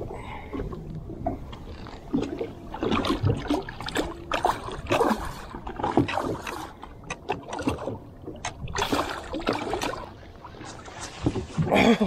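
Water splashing against the side of a flats boat as a hooked tripletail thrashes at the surface right beside the hull, in an uneven run of splashes. The loudest splashes come near the end, as the fish is lifted out of the water by hand.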